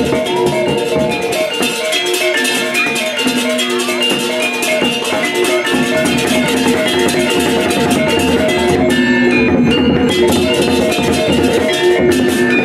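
Balinese gamelan music for the Baris warrior dance: bronze metallophones ring out fast, repeating note patterns over drums and small cymbals.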